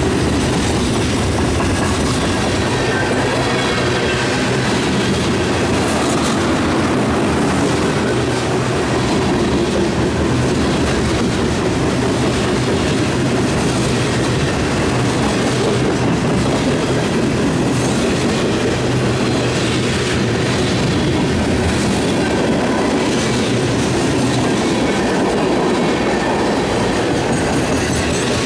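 Freight cars of a mixed manifest train rolling past at close range: a steady loud rumble of steel wheels on the rails, with repeated clickety-clack from the wheelsets.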